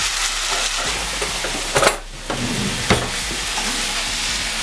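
Stir-fry noodles and vegetables sizzling in a hot wok on a gas hob while they are stirred with a utensil. A few sharp knocks come near two seconds in and again about three seconds in, and the sizzle dips briefly just after two seconds.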